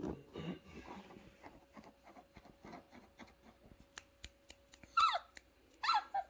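Doberman puppy crying twice near the end, each a short whine that falls in pitch, the loudest sounds here. Before them come low rumbling sounds and scattered light clicks.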